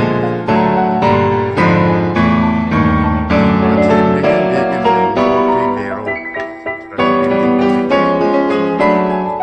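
Piano music: notes and chords struck about twice a second, each ringing and fading, with a softer, sparser passage about six to seven seconds in.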